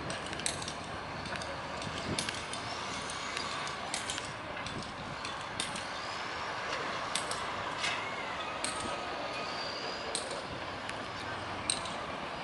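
Steady outdoor background noise, a hiss with scattered short sharp ticks and clicks and a few faint thin whistling tones.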